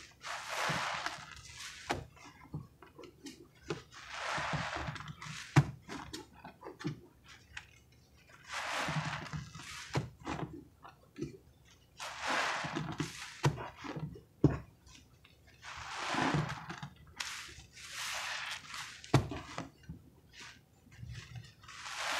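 A sudsy sponge loaded with creamy pine-cleaner foam is squeezed and released by hand. It gives a wet, hissing squelch about every three to four seconds, with small wet clicks and pops in between.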